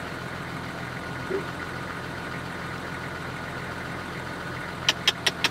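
A steady low hum like an idling engine, with four sharp clicks in quick succession near the end.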